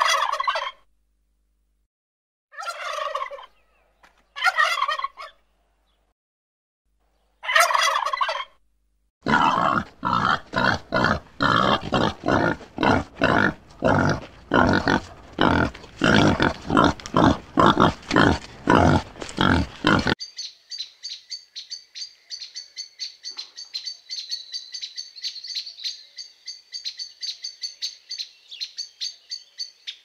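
Animal calls: four short separate calls, then a long run of loud calls repeated about twice a second, then a steady high-pitched chattering takes over.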